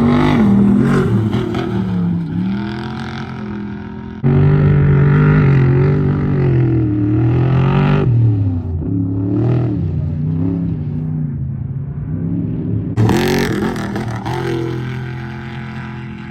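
Off-road race trucks' engines running hard, pitch rising and falling with the throttle as they go by, in several passes that change abruptly about four, eight and thirteen seconds in.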